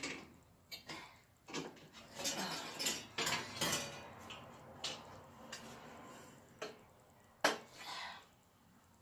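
Irregular metallic clinks, knocks and scrapes as a metal decor hook is bent with a makeshift tool. The clinks are busiest a couple of seconds in, with one sharper knock near the end.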